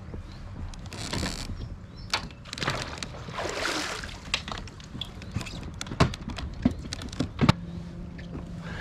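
Water splashing and sloshing, then a series of sharp knocks and clicks on a kayak as a hooked bass is landed and handled aboard. A steady low hum runs underneath.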